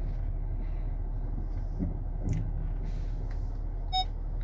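Steady low rumble of a car's engine and tyres heard inside the cabin while driving, then near the end a car's electronic warning chime gives its first short, high beep.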